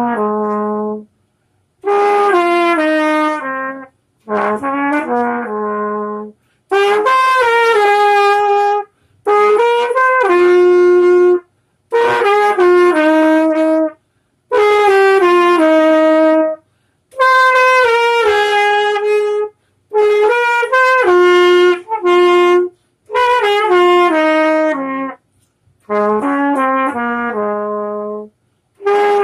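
A solo, unaccompanied valved brass horn of the trumpet family playing a slow melody in short phrases of held notes, each phrase followed by a brief pause for breath.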